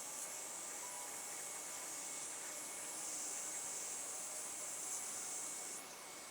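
Heat gun blowing hot air onto the bumper to soften it so it sets in its reshaped form, a steady hiss that drops off sharply near the end.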